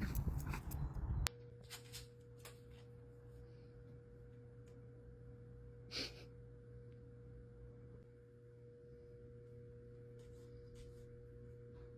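Low steady electrical hum with a thin steady tone over it, and one short breathy sound about six seconds in. The first second holds louder rustling and clicks that cut off abruptly.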